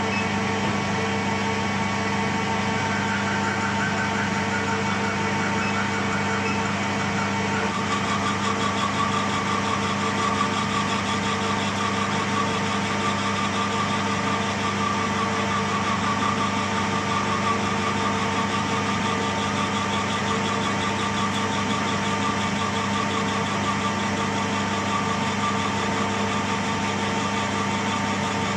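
Metal lathe running steadily, its chuck spinning, while a brass bar is turned down with a lathe tool. A higher steady tone comes in about eight seconds in and holds.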